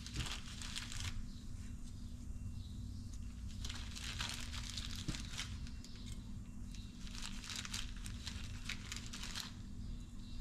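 Crinkling, rustling handling noise from gloved hands working at an engine cylinder head, in three bursts of one to two seconds each, over a steady low hum.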